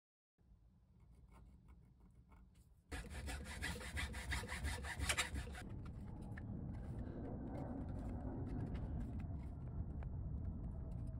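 A 3D-printed plastic plate rubbing and scraping against an e-bike frame as it is pressed into place by hand. The scraping starts suddenly about three seconds in and is loudest for a few seconds, then gives way to softer handling noise over a low rumble.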